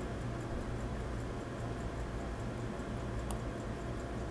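A faint, regular ticking over a steady low hum, with one sharper metal click about three seconds in as a small screwdriver works at a stuck hairspring collet.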